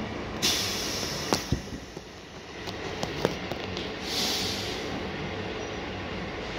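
Heavy machinery of a self-loading platform truck working a steel shipping container, running steadily. Over it come two hissing bursts, about half a second in and again around four seconds, with several sharp metallic knocks between them.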